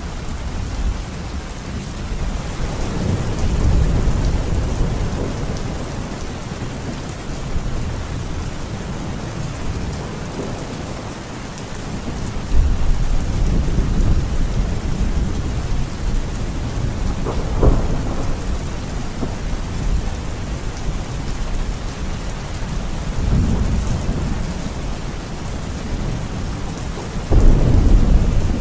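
Heavy, steady rain with thunder rumbling several times over it; the thunder comes in suddenly louder a little before the middle, with a sharp crack past the middle and another loud clap near the end.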